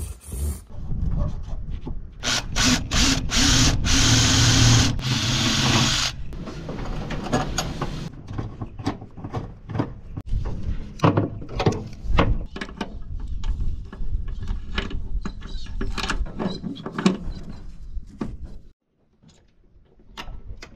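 A power tool runs steadily for about four seconds, then a long stretch of scattered knocks, clicks and rattles from hand work with tools and parts. The sound stops abruptly near the end.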